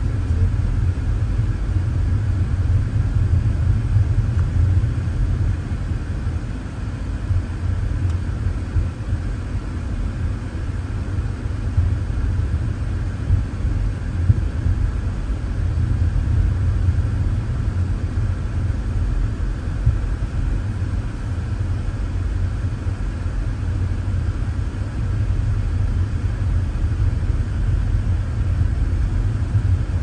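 Car cabin noise while driving on a paved road: a steady low rumble of engine and tyres.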